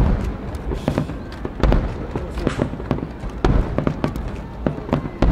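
Aerial fireworks going off: an irregular run of sharp bangs and crackles, with heavier deep booms about every one and a half to two seconds.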